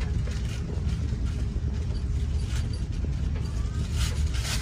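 Steady low rumble of an Airbus A350-900 passenger cabin, with a few faint clicks of something being handled near the end.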